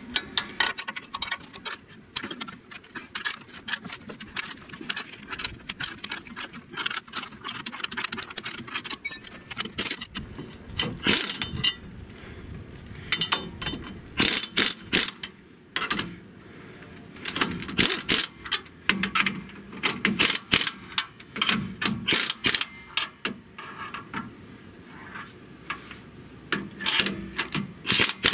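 Hand socket ratchet clicking in short runs of strokes, with clinks of metal on metal, as the U-bolt nuts clamping the rear leaf spring to the axle are tightened.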